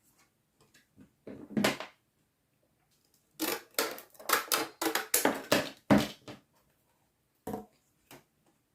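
Close-up handling noises of small dollhouse craft work: a quick, irregular run of crackly clicks and taps as foamboard and window-frame pieces are handled and pressed together.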